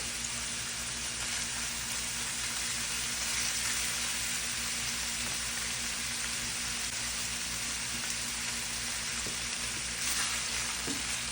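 Beef frying in a hot pan, sizzling steadily.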